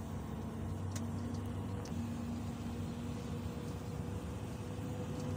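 Steady low rumble heard inside a car's cabin as it drives through floodwater: engine and tyres running through standing water, with a faint steady engine hum and a light click about a second in.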